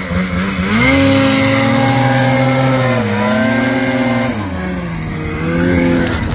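Snowmobile engine revving hard: it climbs steeply about a second in, holds high with a brief dip around three seconds, drops back after four seconds, then rises once more near the end.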